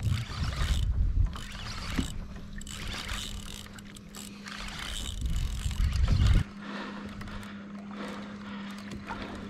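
Wind buffeting an action-camera microphone over water splashing against a kayak hull. About two-thirds of the way in the rumble cuts off abruptly, leaving softer water splashes over a faint steady low hum.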